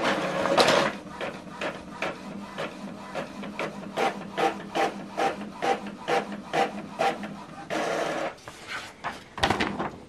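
Epson WorkForce WF-2910 inkjet printer printing a test page. A burst of motor noise as the paper is taken in, then regular short mechanical passes of the print head, about three a second, a longer steady run near the end, and a few sharp clicks.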